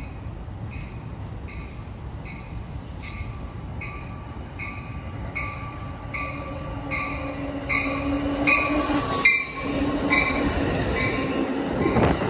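Bilevel passenger train approaching and running past on wet track, its sound growing louder until the cars pass close near the end. A bell dings steadily about once every three-quarters of a second through most of it.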